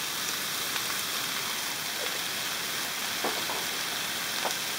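Lamb chunks and onions sizzling steadily in ghee in a frying pan on high heat.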